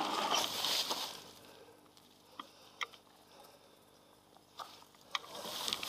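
Rolling and wind noise from a mountain bike fades out within the first second, then a near-quiet stretch with a few faint, scattered clicks.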